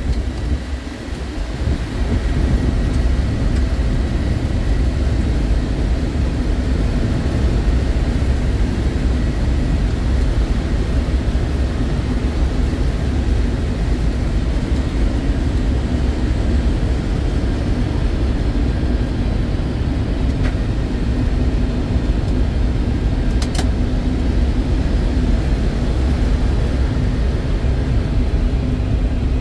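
Steady cabin noise in the cockpit of a four-turbofan Boeing C-17 Globemaster III in flight: a deep rumble of engines and airflow with a steady hum, growing louder about two seconds in. A single sharp click sounds about three-quarters of the way through.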